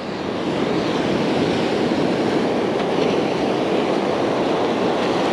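Ocean surf washing up the beach: a steady rushing wash of breaking waves and foam close by, building slightly in the first second.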